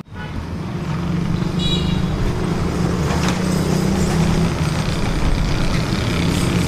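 Road traffic close by: a heavy vehicle's engine running, growing louder over the first second and then steady. About a second and a half in there is a brief high squeal.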